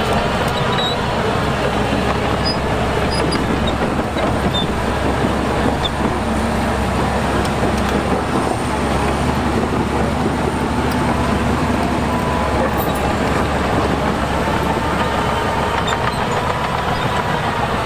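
Heavy earthmoving machinery, a bulldozer and dump trucks, with diesel engines running steadily and loudly.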